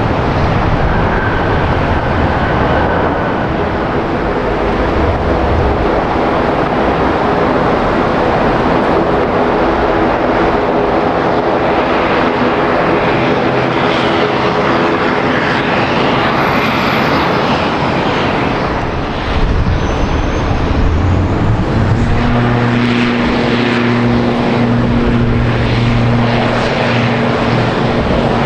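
Airliner engines running loud and steady, with a droning hum. Partway through, the hum drops to a lower, stronger tone.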